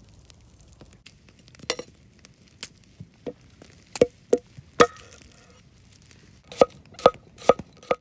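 A large knife cutting an onion on a wooden cutting board: about ten sharp knocks of the blade against the board, spaced unevenly, with a gap of about a second and a half in the middle.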